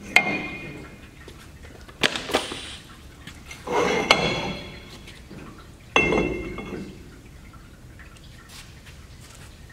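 Cut pieces of steel tube clanking and scraping against the band saw's steel vise and table as they are handled. There is a ringing clank at the start, two knocks about two seconds in, a scrape around four seconds, and another ringing clank about six seconds in.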